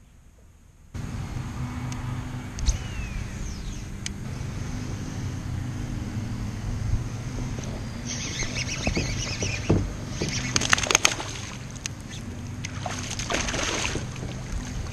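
A hooked largemouth bass splashing and thrashing at the water's surface beside a kayak. Several sharp splashes fall mostly in the second half, over a steady low rumble that starts about a second in.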